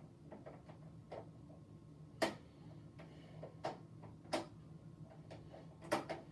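Scattered light clicks and taps of screws and metal parts being handled on a desktop computer's case, with a few sharper clicks standing out.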